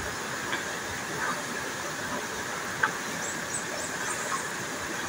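Waterfall rushing steadily, with one sharp knock about three seconds in and a few faint high chirps soon after.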